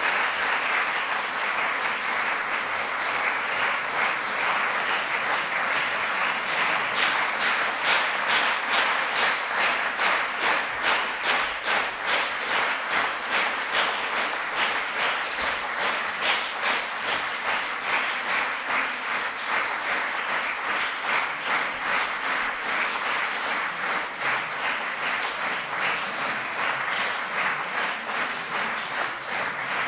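Concert audience applauding a piano recital. About seven seconds in, the clapping falls into steady rhythmic clapping in unison, two to three claps a second, which eases off slightly near the end.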